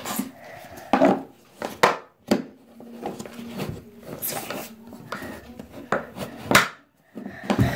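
A few sharp knocks and clatters of small objects being handled on a hard surface, with quieter rustling between them.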